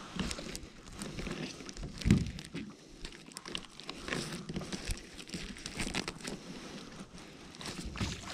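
Gloved hands working a zander free from a nylon gill net: rustling and scraping of mesh and fish with many small clicks, and a low thump about two seconds in.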